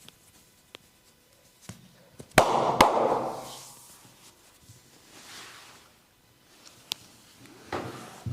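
Two loud, sharp cracks about half a second apart, followed by a brief noisy rush that fades over about a second. A single click comes later, and a softer rustle near the end.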